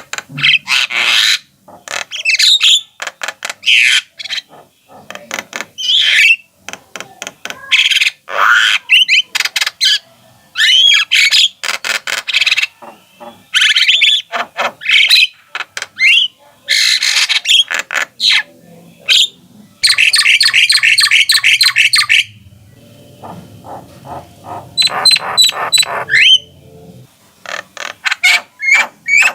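Javan myna singing continuously: a stream of harsh chattering calls mixed with short whistled notes, with a fast rattling run about twenty seconds in.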